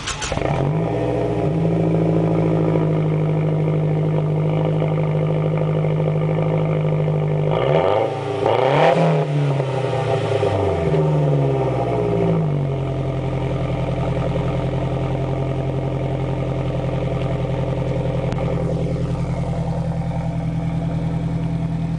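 Mazdaspeed3's turbocharged 2.3-litre four-cylinder heard through stock exhaust tubing and an AeroTurbine muffler with the resonators removed. The engine catches just as it begins and idles steadily, is revved briefly a few times in the middle, then settles back to a steady idle.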